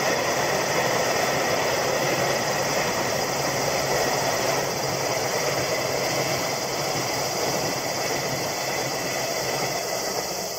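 Freight train of tank wagons rolling past on the curve, a steady rumble and rattle of wheels on rail that slowly fades as the last wagons pass.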